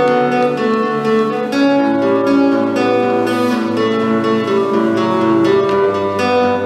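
Acoustic guitar playing chords, the notes ringing on.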